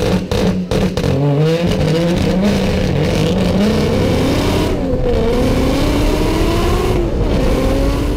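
Turbocharged car engine heard from the cockpit, held at steady revs on launch control with a rapid stuttering cut, then launched from a standstill about a second in. Revs climb in three rising sweeps with gear changes about five and seven seconds in, as the car accelerates hard through the gears with traction control active.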